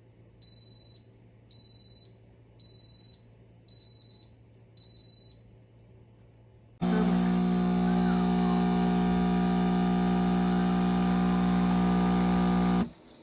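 RELEXNOW 20-bar espresso machine beeping five times, about once a second, then its pump running loudly and steadily for about six seconds before cutting off sharply.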